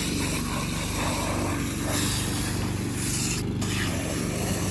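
Gas-powered mower engine running steadily while cutting overgrown grass.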